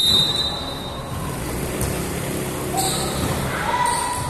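Volleyball game noise on a covered court: a steady hubbub of players and onlookers, a sharp hit about three seconds in, and a held call near the end.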